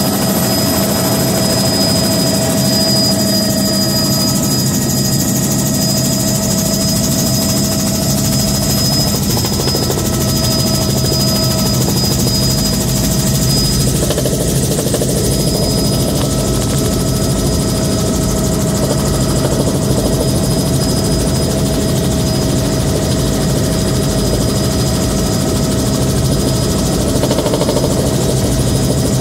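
Bell JetRanger 206B3 helicopter in flight, heard from inside the cabin: the turboshaft engine and two-blade main rotor make a steady, loud drone with a high turbine whine. Wind rushes through the open door frames.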